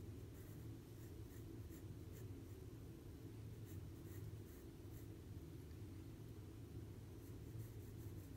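Faint scratching of a graphite pencil shading on sketchbook paper in short, irregular strokes, over a steady low hum.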